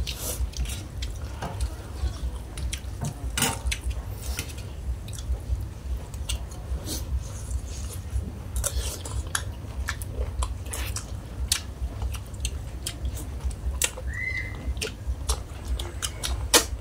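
Spoons clinking and scraping against a large metal serving tray while several people eat, with chewing sounds. Short clicks come irregularly throughout over a steady low rumble.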